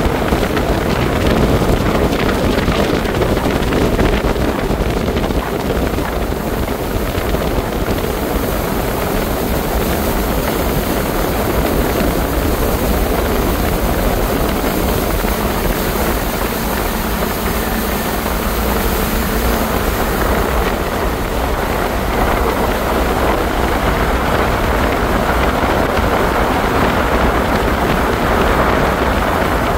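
Regal motorboat running at speed: a steady, loud rush of engine, water against the hull and wind on the microphone, holding even throughout.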